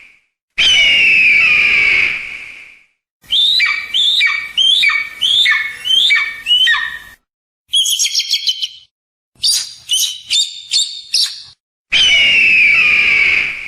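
Hawk calls: a long, hoarse, falling scream, then a run of about seven shorter falling calls, a quick chatter and a series of sharp calls, and a second long scream near the end.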